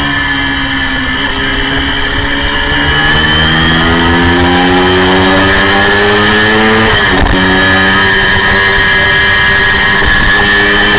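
Honda VFR400's V4 engine at high revs on a racing motorcycle, heard from the rider's seat. The revs climb steadily under acceleration, dip briefly about seven seconds in, then hold high and steady.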